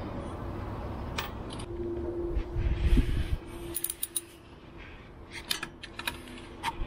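Tools and bolts being worked at the differential: a brief whirring tone with a low rumble peaking about three seconds in, then a scatter of light metallic clinks and taps.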